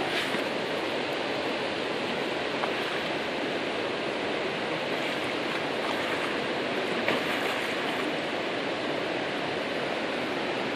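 Fast-flowing river rapids rushing steadily, with a few faint brief ticks.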